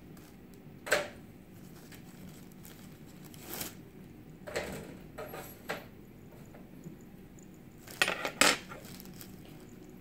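Kitchen clatter of metal utensils and cookware: separate sharp knocks and clinks, one about a second in, a few more in the middle, and a quick cluster of loud clicks near the end.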